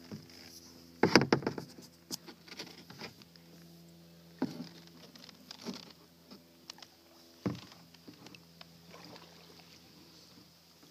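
A plastic kayak being paddled along a shallow stream: light water splashing with sharp knocks against the hull, a loud cluster about a second in and single knocks later.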